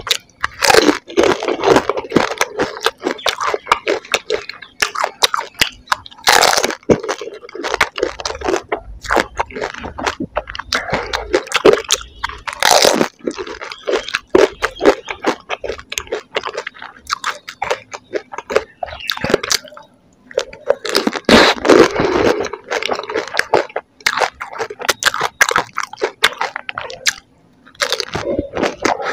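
Close-miked eating of golgappa (pani puri): crisp hollow puri shells cracking between the teeth, then wet squishy chewing. The crunches come in repeated bursts, with louder bites every several seconds.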